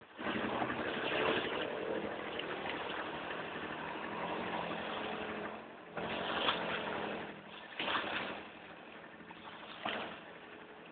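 Arctic Cat Mud Pro ATV running as it wades through lake water: a faint engine hum under a steady rushing noise of water, with louder rushes about six, eight and ten seconds in.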